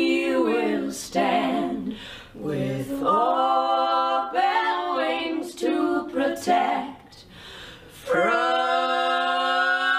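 Voices singing a cappella with no instruments, in short phrases with brief breaks, then a long held note from about eight seconds in.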